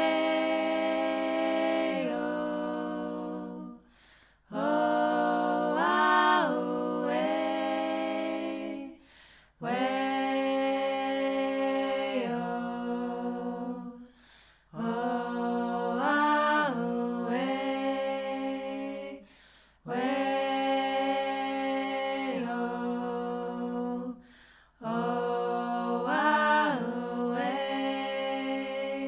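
Background music of held, many-voiced sung chords, a cappella, in phrases of about four to five seconds with short breaks between them. Every other phrase has a quick rise and fall in the melody in its middle.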